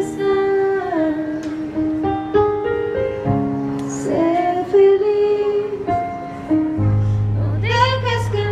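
A woman singing a slow song through a microphone, holding long notes that step from pitch to pitch, with instrumental accompaniment; a low bass note comes in near the end.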